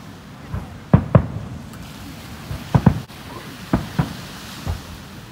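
Japanese aerial firework shells bursting: about seven sharp booms, most coming in close pairs, with a weaker one near the end.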